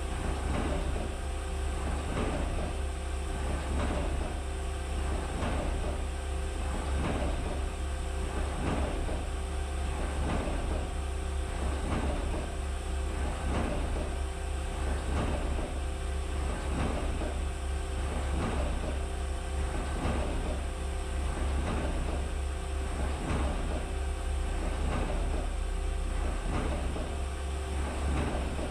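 Mazak Integrex mill-turn machine broach-shaping the square hardy hole of an anvil: the tool strokes back and forth, scraping off a chip on each pass, in an even rhythm a little more than once a second over the machine's steady hum.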